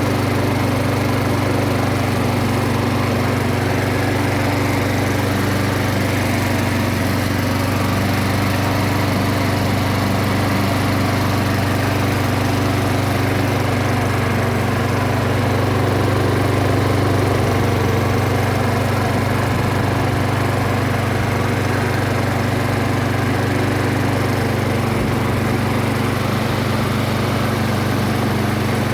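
Honda IZY HRG415C3 rotary lawnmower's four-stroke single-cylinder engine running steadily at a constant speed, freshly serviced.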